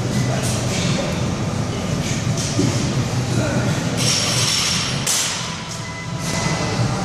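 Steady low rumble of a large gym hall's background noise, with a couple of brief hissing rushes about four and five seconds in.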